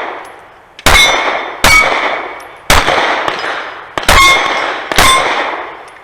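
Sig Sauer P320 Carry pistol firing five shots in a timed string at steel targets, about one a second, with the steel plates ringing after several of the hits.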